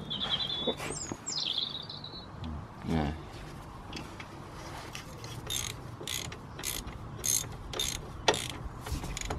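Ratchet wrench clicking in short, irregular strokes as the camber bolt on the front strut is turned. A bird trills briefly near the start.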